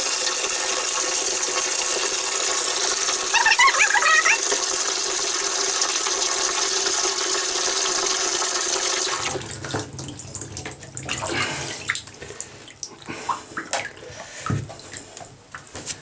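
Electric jet-board drive (53mm jet unit with a brushless motor) running submerged in a bathtub, churning the water with a steady rushing noise and a faint motor whine, briefly higher around three and a half seconds in. It cuts off suddenly about nine seconds in, leaving water sloshing and dripping.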